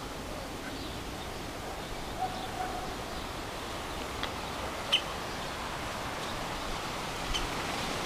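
Steady outdoor hiss with a few faint, short bird calls: sharp brief chirps about four, five and seven seconds in, the one at five seconds the loudest.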